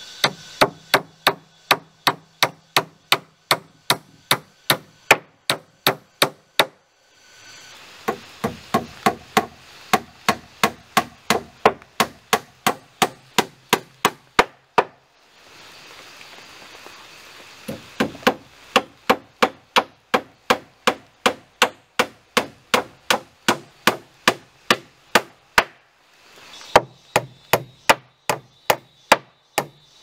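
Hammer striking overhead, nailing a wooden strip to the underside of a plank floor: sharp blows at about three a second, in runs broken by short pauses.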